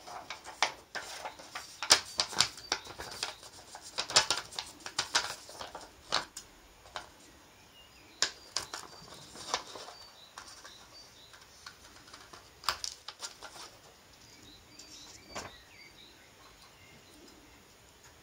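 Scissors snipping through a sheet of paper, a run of short sharp cuts with the paper rustling as it is turned. The snips come thick and fast for the first several seconds, then fewer and farther apart.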